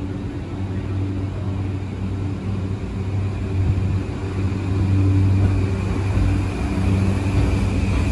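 JR East E235-1000 series electric train moving off along the platform: a steady low hum from its electric drive over a rumble, with a whine rising near the end as it gathers speed.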